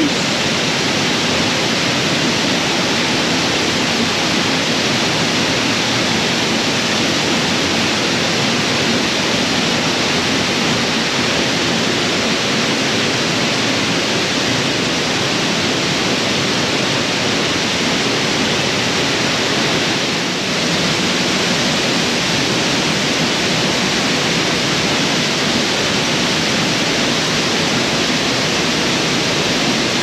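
An 82-foot waterfall plunging into a rock-walled pool: a steady, even rush of falling water that dips briefly about two-thirds of the way through.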